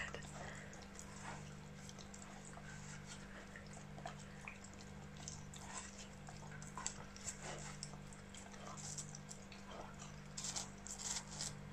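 Siberian husky puppy licking and biting into a juicy watermelon slice: faint, scattered wet smacks and crunches over a low steady hum.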